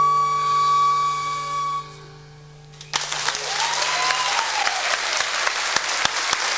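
A band's last held chord, a flute note on top over accordion, dying away about two seconds in. After a brief lull an audience breaks into steady applause about three seconds in.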